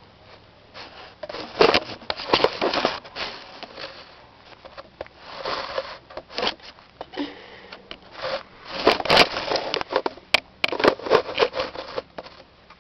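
Tortoise biting and chewing kernels off a corn cob: crackling, crunching bites in three bursts separated by short pauses, the last and busiest near the end.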